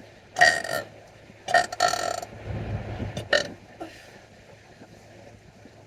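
A person burping loudly three times: one burp about half a second in, a longer two-part burp around a second and a half in, and a short one a little after three seconds.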